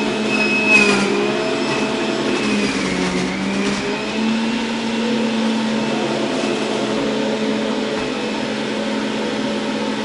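Breville centrifugal juicer's motor running on high, with a steady whine whose pitch sags for a moment about two to four seconds in, as leafy greens are pushed down the feed chute with the pusher and load it. A brief louder burst of grinding comes about a second in.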